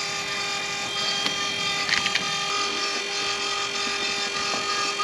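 Small electric oil-extraction pump running steadily, drawing engine oil up through the dipstick tube, with a few light clicks as the fuel filter is handled.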